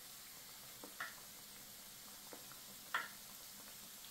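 Mandazi dough pieces deep-frying in hot oil in a pan: a faint steady sizzle with two sharp pops, about two seconds apart, as the oil spits.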